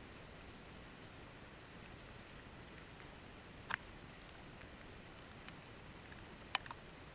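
Rain falling in a faint, steady hiss, with scattered drops ticking on the window pane; two sharper ticks stand out, about three and a half seconds and six and a half seconds in.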